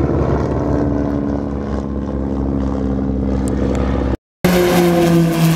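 Piston engine of a vintage biplane flying past overhead, its pitch falling slightly as it goes by. About four seconds in the sound cuts out sharply for a moment and a second aircraft's engine comes in, louder and also dropping slowly in pitch.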